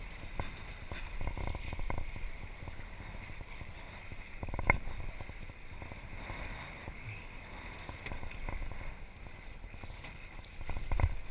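Water sloshing against a small sailing dinghy's hull as it sails, with wind buffeting the microphone. There is a sharp knock about four and a half seconds in, and a few dull thumps near the end.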